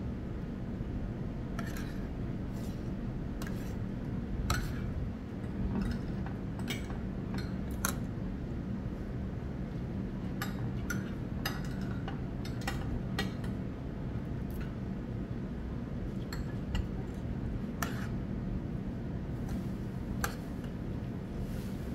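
Metal spoons and forks clinking and scraping against plates and bowls while eating: scattered sharp clinks, some close together, over a steady low background hum.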